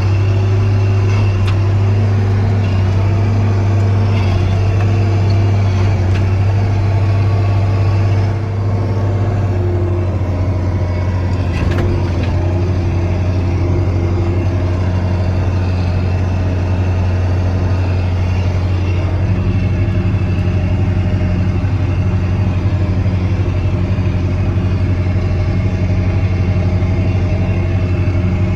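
Steiger Panther 1000 tractor's diesel engine running steadily as the tractor drives along in gear, a strong low drone with a brief dip in level about eight seconds in.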